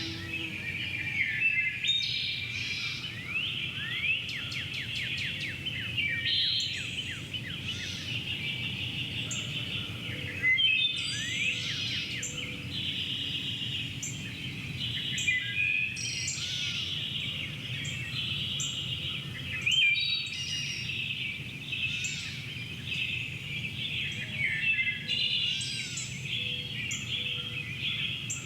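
Several songbirds singing and calling together in a countryside dawn chorus: many overlapping chirps, fast trills and repeated notes, over a low steady background rumble.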